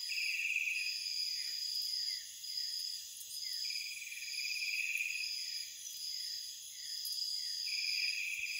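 Night forest insect chorus: one insect keeps up a high pulsing trill, another gives a louder buzzing trill in bursts of about a second and a half, three times, over a steady train of short falling chirps.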